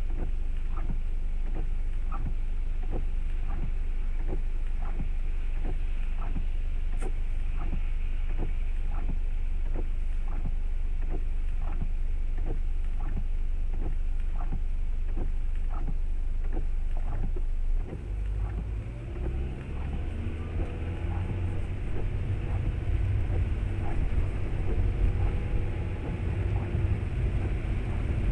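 Car cabin noise picked up by a dashcam in the rain: a steady low rumble with a regular ticking about one and a half times a second. The ticking stops about two-thirds of the way in, and the engine and road noise then grow louder, with rising tones as the car accelerates.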